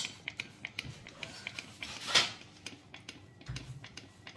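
One short hiss of an aerosol food shine spray being puffed onto the fresh berries about two seconds in, with faint small clicks around it.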